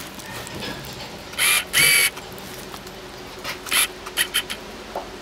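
A fillet knife working on a small largemouth bass on a wooden cleaning board: several short, crunchy scraping cuts near the end. Earlier, about a second and a half in, come two louder brief sounds with a squeaky edge.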